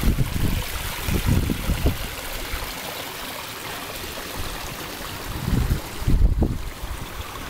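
Water trickling and splashing over stones as it pours from the outlet of a dry stone water channel, a steady hiss. Low rumbles of wind on the microphone near the start and again around six seconds in.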